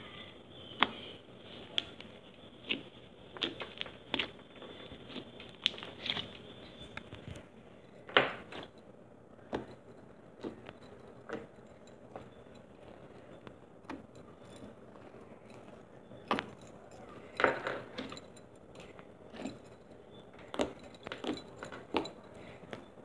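Slime being squished and poked by hand, making irregular short clicks and pops, the loudest about eight seconds in and again near seventeen seconds.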